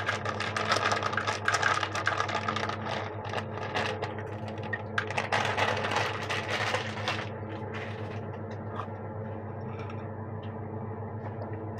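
Rapid clicking and rattling of things being handled, dense for about the first seven seconds and then fainter, over a steady low hum.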